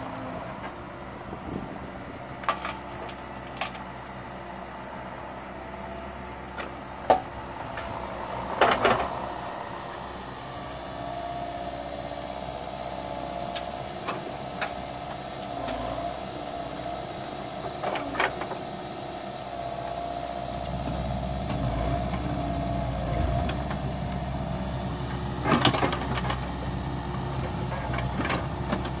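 Yanmar B50W wheeled excavator's diesel engine and hydraulics working steadily, with a whine from the hydraulics, while soil is dug and dumped. Several knocks and thuds come as the bucket unloads earth into a steel trailer, and the engine note grows heavier about twenty seconds in.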